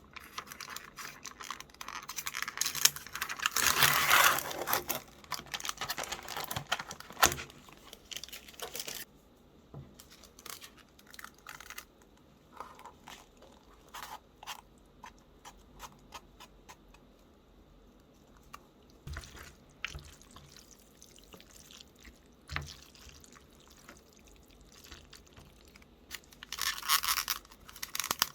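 Food packaging being handled: dense crinkling and rustling for the first several seconds, then scattered light clicks and taps, and another short burst of rustling near the end.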